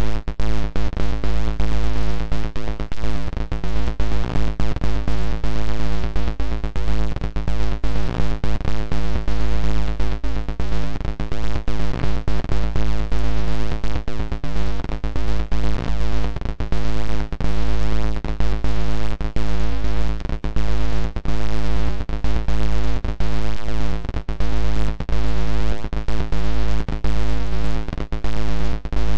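Computer-generated music from a 256-byte ZX Spectrum intro. It is a steady, low, buzzy drone on one pitch, broken all through by quick stuttering gaps and clicks.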